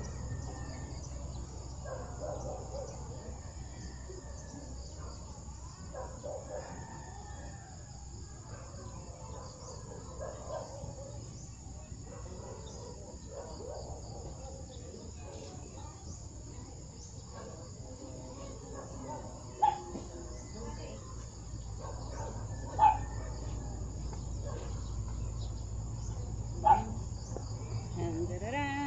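Steady high-pitched insect trill from crickets or cicadas, with faint scattered background sounds. Several short, sharp sounds stand out in the second half.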